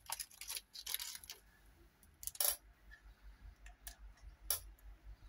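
A few light, scattered clicks and taps as small gold-painted butterfly cut-outs are handled and set down on a wooden box lid.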